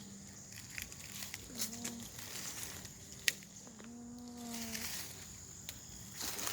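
A cow mooing twice, a short call and then a longer, level one, with a sharp click between them.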